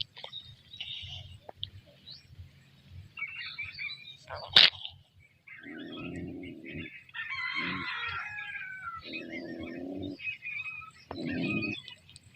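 Birds chirping in short high calls, with one sharp click about four and a half seconds in and three low sounds of about a second each in the second half.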